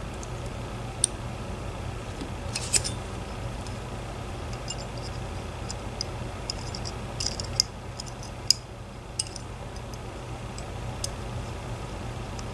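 Scattered small metallic clicks and ticks at irregular spacing from a dimple lock and its parts being handled, over a steady low hum.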